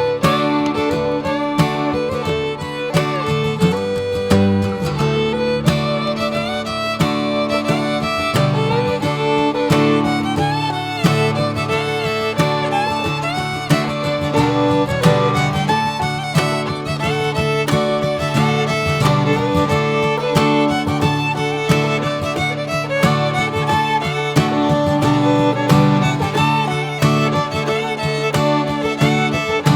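Background music: an upbeat fiddle-and-guitar tune in a bluegrass or country style, with fiddle melody over steadily plucked strings.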